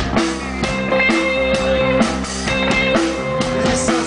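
Live rock band playing an instrumental passage: a drum kit keeps a steady beat under electric guitar, without vocals.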